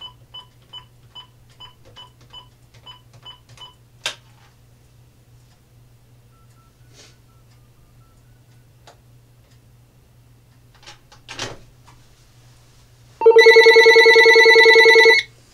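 A quick run of about ten short keypad beeps as a number is dialed, then a click. Near the end the Uniden EXAI7980 cordless phone rings once, a loud warbling electronic ring about two seconds long, as the test call comes in.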